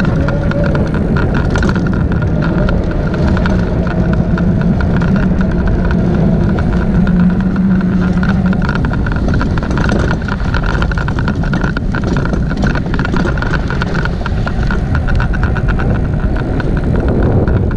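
Detroit Electric Bike Company Rebel Wagon, a fat-tyre electric cargo bike, riding along a concrete sidewalk: a steady rumble of its 4-inch tyres and the wind, with a steady high whine over it throughout. A lower hum fades out about halfway through.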